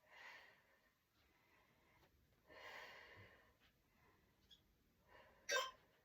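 Faint, heavy breaths out, twice, from a person working through a strenuous bodyweight core exercise, then a short beep near the end.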